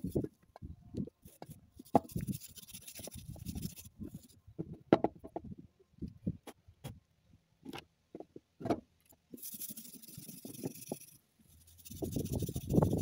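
Stiff wire brush scrubbing across a carved wooden skull in short, irregular strokes. In the middle the brushing stops for a stretch of scattered clicks and knocks as the wood is handled, then heavier scrubbing resumes near the end.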